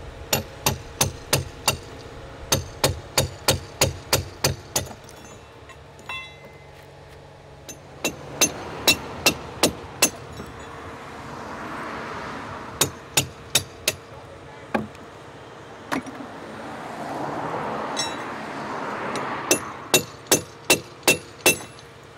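A hand hammer striking steel in runs of quick ringing blows, about three to four a second, with pauses between the runs. A rushing noise swells twice in the pauses.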